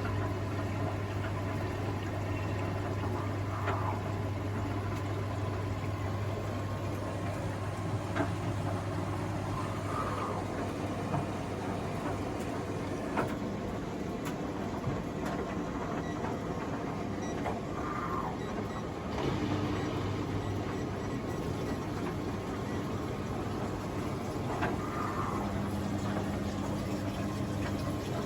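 Panasonic NA-147VB5 washing machine running during a test cycle: a steady low hum with scattered faint clicks and knocks, the hum dropping away about two-thirds of the way through.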